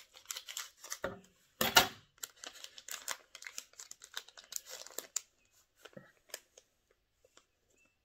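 Scissors snipping through the crinkly plastic wrapper of a Pokémon booster pack, followed by the wrapper crinkling and rustling as it is handled open, loudest about two seconds in. Sparser light rustles and clicks near the end.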